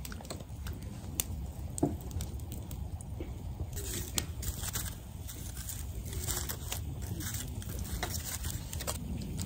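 Firewood burning in a campfire, crackling with scattered sharp pops over a low steady rumble, mixed with light scraping and rustling from something handled close by.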